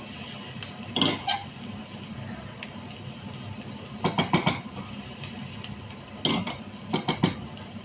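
A spatula stirring onion and garlic in a frying pan, scraping and clacking against the pan in short clusters: about a second in, around four seconds, and twice near the end. A low steady hum runs underneath.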